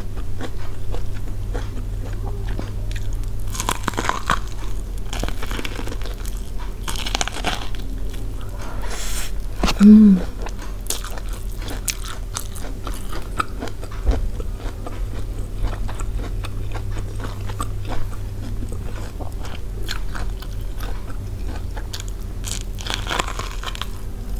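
Biting into and chewing steamed sweet corn on the cob, with many small crunches as the kernels come off the cob. A brief, loud hum about ten seconds in.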